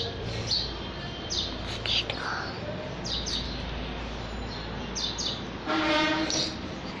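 Small birds chirping, short high chirps every second or so. About six seconds in comes a brief held voice-like tone.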